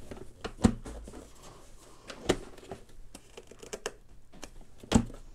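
Plastic housing of an iDPRT SP420 thermal label printer being handled and moved on a desk: scattered light clicks and knocks, with three louder knocks, about a second in, around two seconds in and near the end.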